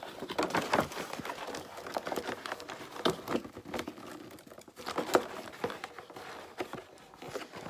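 A toy's cardboard box being pulled and worked apart by hand: irregular crinkling and rustling with small clicks and snaps.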